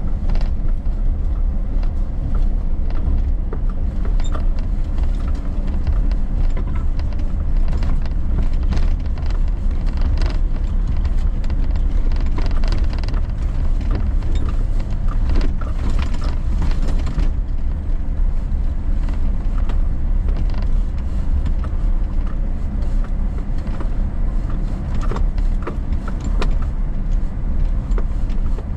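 Suzuki Jimny driving on a rough unpaved forest road, heard from inside: a steady low rumble with constant creaks, rattles and small knocks from the body and suspension.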